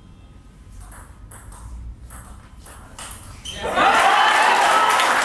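Table tennis rally: the ball clicks off paddles and table about twice a second. Near the end the point is won and spectators break into loud cheering and shouting.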